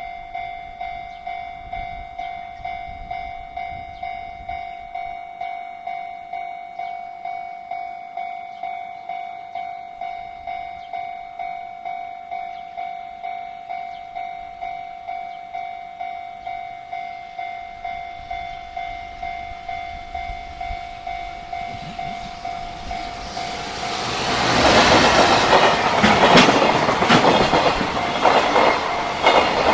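Level-crossing alarm bell ringing steadily about twice a second as a freight train approaches. From about 24 s in, a JR Freight EF210 electric locomotive and its container wagons pass close by, loud, with wheels clattering rhythmically over the rail joints.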